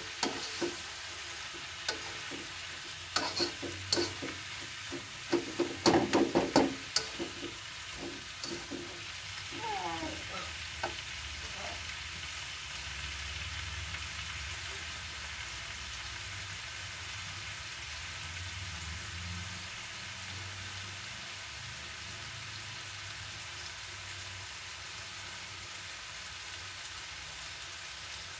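Chopped pok choy stir-frying in a wok: a spatula scrapes and knocks against the pan in quick strokes for the first several seconds, loudest about six seconds in, then the greens sizzle steadily on their own.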